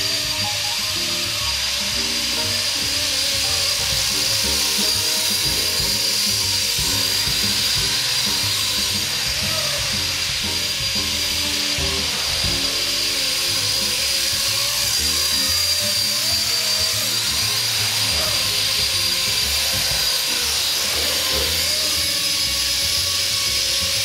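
Blade SR electric RC helicopter in flight: a steady high motor and rotor whine that wavers slightly in pitch as it manoeuvres, over background music.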